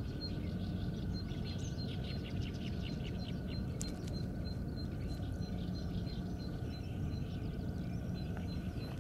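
Small birds chirping over a steady low outdoor rumble. A high, short peep repeats evenly about three times a second.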